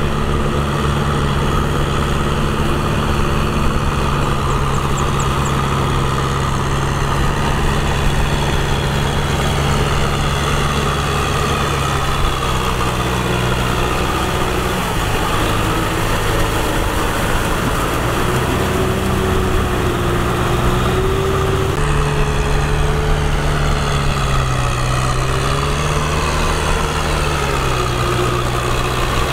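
Kubota tractor's diesel engine running under load as it drives a rear rotary tiller through wet mud. The engine note holds steady at first, then rises and falls repeatedly through the second half.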